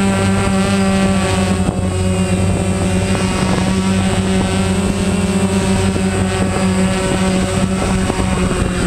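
Quadrotor drone's four electric motors and propellers running close to the microphone, a loud, steady buzz and whine of several pitches at once, as the drone flies low and comes down toward the floor.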